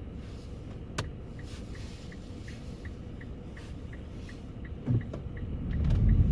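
Car turn-signal indicator ticking steadily, about three ticks a second, over the low rumble of the car's engine and tyres heard inside the cabin. A sharp click comes about a second in, a thump near five seconds, and the rumble swells near the end.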